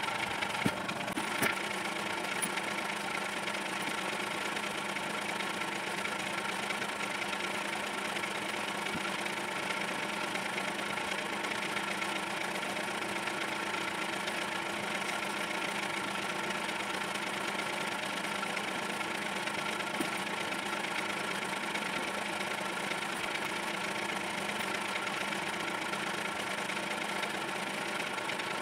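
Steady whirring hum of a running electric motor, holding the same pitch throughout, with a few light clicks about a second in.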